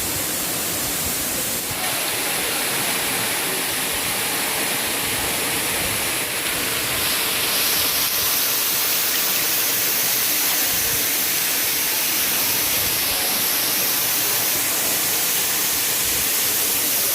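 Waterfall running, a steady rushing of falling water that grows a little louder about seven seconds in.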